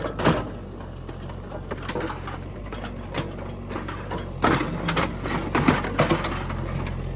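Mini excavator engine running steadily while its bucket smashes a lawn mower: a series of sharp metal crunches and clanks, the loudest cluster about four and a half seconds in.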